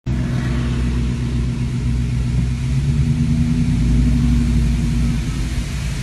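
Car engine hum and road noise from a moving car, heard from inside, the engine note rising a little about halfway through.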